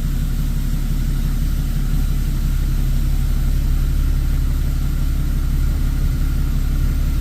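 Dodge pickup's Cummins turbo-diesel engine idling steadily, with a low, even rumble, freshly run up after an oil change.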